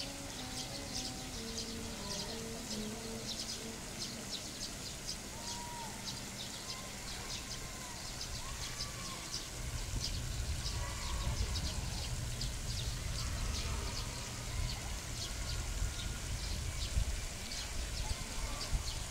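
Outdoor pond ambience: a steady stream of short, high-pitched chirps, a few short calls in the middle, and a low rumble that grows louder about halfway through.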